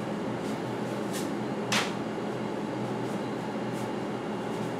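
A cloth rag wiping down a road bike's chain and crankset during degreasing: a few short, soft swishes, the clearest a little under two seconds in, over a steady room hum.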